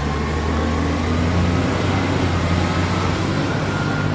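Large road vehicle's engine running steadily under dense road noise, with a faint whine slowly rising in pitch.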